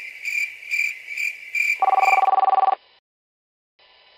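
Crickets chirping steadily, about two chirps a second, then an electronic telephone ring about two seconds in: one burst of about a second of a fast-warbling two-note tone, which cuts off suddenly.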